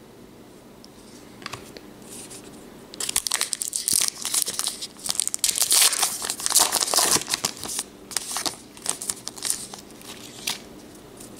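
Foil wrapper of a Topps Gypsy Queen baseball card pack being torn open and crinkled, starting about three seconds in and lasting several seconds, then a few lighter crinkles and clicks.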